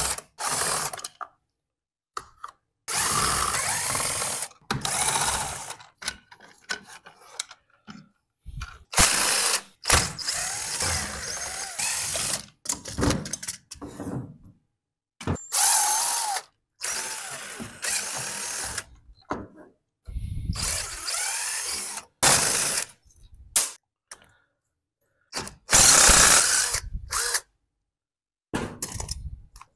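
Cordless drill/driver backing screws out of a chainsaw's plastic housing in repeated bursts of a second or two, its motor pitch rising and falling, with short knocks of parts being handled between bursts.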